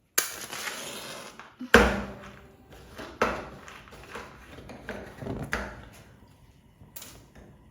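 Cooking pot and utensil handling on the stove: a noisy burst, then four sharp knocks spread over several seconds, each with a short ring.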